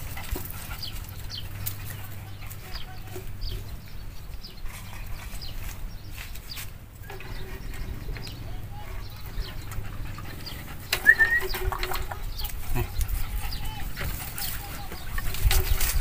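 Scattered small clicks and scrapes of a wire grill grate and charcoal being handled on a clay charcoal stove, with faint animal calls; the loudest is a short rising call about eleven seconds in.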